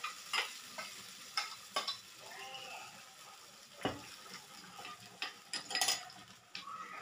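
Ground chilli chutney paste sizzling in hot oil in a frying pan, with a spoon scraping and clinking against the steel mixer jar and pan in a series of sharp clicks; one duller knock about four seconds in.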